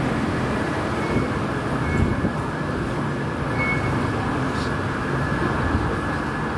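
Steady rumbling hubbub of a Skytrain station ticket hall, with a few short high beeps from the fare gates as cards are tapped.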